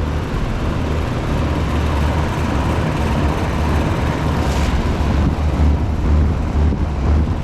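1993 Luxaire (York-built) central air conditioner condenser running: a steady low hum with a rushing noise over it.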